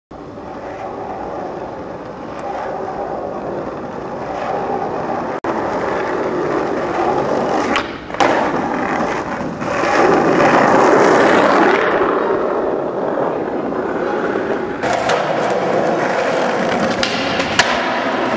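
Skateboard wheels rolling over rough asphalt and concrete, with a few sharp clacks of the board popping and landing.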